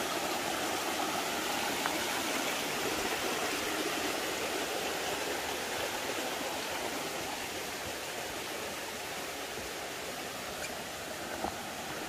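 Mountain stream flowing, a steady rush of water that fades slightly in the second half.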